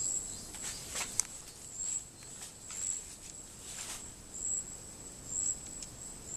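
Insects chirping with a high, steady shrill that swells in repeated pulses. Scattered clicks and rustling come in the first four seconds.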